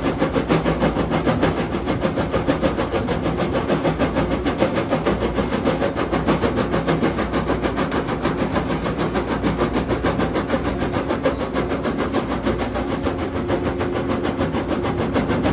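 Volvo EC210DL excavator running steadily, with a quick, even pulse throughout.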